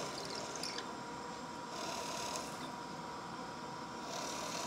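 Shop vacuum running steadily with a thin whine, while a drill press drives a 1/4-inch twist bit into 1/2-inch plywood three times, each cut a short hissing surge as the chips are sucked away through the dust shroud.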